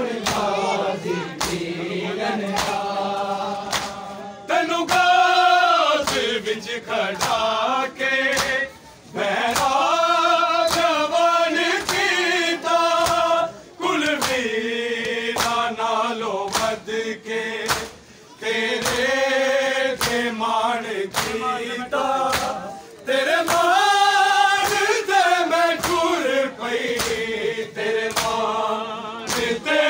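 Men's voices chanting a noha (mourning lament) together in a slow, drawn-out melody, with short breaks between lines. A steady beat of open-hand slaps on bare chests (matam) keeps time under the chant.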